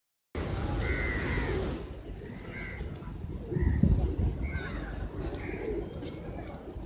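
A large flock of feral pigeons cooing, with short higher bird calls coming about once a second.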